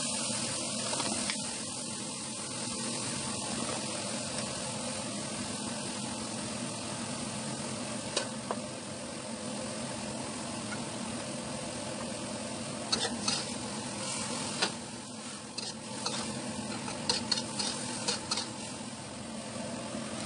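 Vegetables sizzling as they are stir-fried in a metal wok, with a metal spatula scraping and clinking against the pan. There are several sharp clinks, most of them in the second half.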